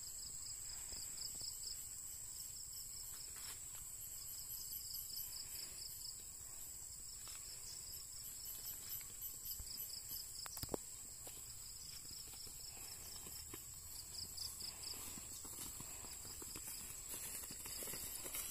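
Insects chirping: a steady high-pitched whine with repeated runs of rapid high chirps, over faint footsteps in grass.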